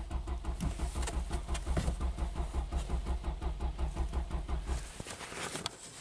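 Starter cranking the 2006 Lexus GS300's direct-injected V6 in a steady pulsing rhythm for about five seconds without it catching, then stopping: a crank-no-start.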